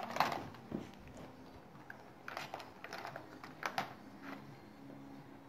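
Felt-tip markers clattering against each other and a plastic case as they are handled: light clicks in two short clusters, one near the start and one a couple of seconds in.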